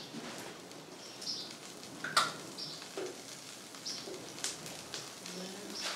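Birds calling, with short high chirps repeating about every second and a half. A few sharp clicks come from a steel ladle knocking the metal kadai, the loudest about two seconds in.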